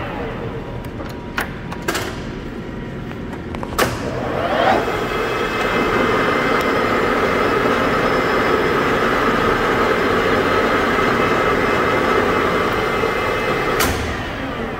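Clausing Colchester 15" x 50" geared-head engine lathe running, its headstock gearing giving a steady whine of many tones. A few sharp clicks and a knock come in the first four seconds; the running rises and grows louder about five seconds in, and there is a sharp click near the end.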